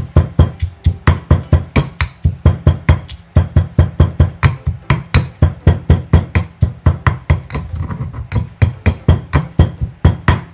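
Stone pestle pounding dried chillies in a stone mortar: steady knocks about three a second, with a short break about three seconds in and lighter strokes around eight seconds.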